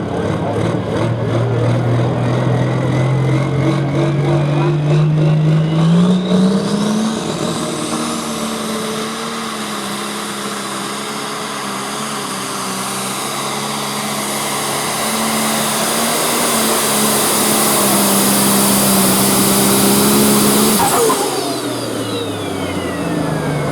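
Pro stock pulling tractor's turbocharged diesel engine at full throttle under load. The engine pitch climbs over the first seven seconds with a high whine rising above it, then holds steady and loud through the pull. About 21 seconds in the throttle is cut, and the engine and whine wind down.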